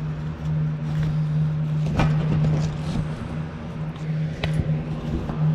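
A few sharp clicks of metal parts being handled as a new cable and clevis are fitted to a mower's grass flap linkage, the loudest about two seconds in and two more near the end, over a steady low hum.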